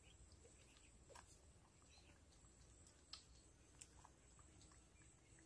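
Near silence: faint outdoor room tone with a few faint, scattered clicks.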